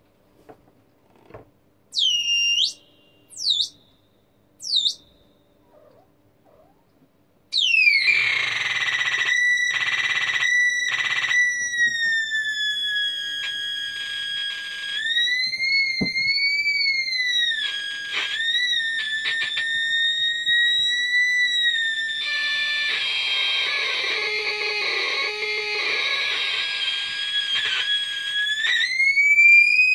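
Homemade breadboard oscillator circuit, tuned by two potentiometers, putting out an electronic tone. A few seconds in come three short chirps falling in pitch; after that a steady high tone sets in, bending up and down in pitch as the knobs are turned, cutting out briefly a few times and turning harsh and buzzy late on.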